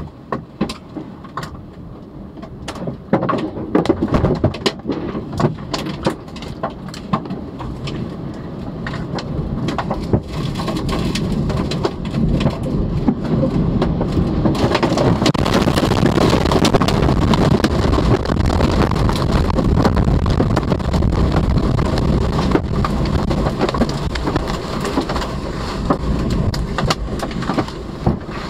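Tornado winds and torrential rain battering a car, heard from inside the cabin, with many sharp knocks of flying debris and rain striking the body and glass in the first ten seconds. The rushing wind-and-rain noise builds steadily and is heaviest from about halfway in, easing only slightly near the end.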